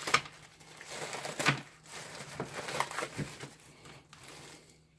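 Thin plastic bag crinkling and rustling as it is handled and a coiled cable is pulled out of it, with irregular crackles, the loudest just after the start and about a second and a half in.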